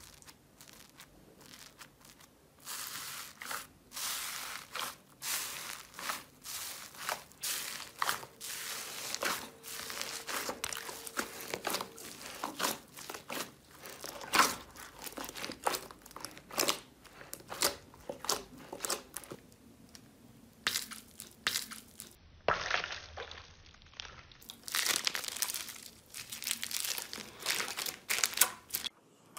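Hands squeezing, pressing and kneading slime and foam beads, making irregular crackling, crunchy pops and sticky clicks. The first couple of seconds are quiet before the crackling starts.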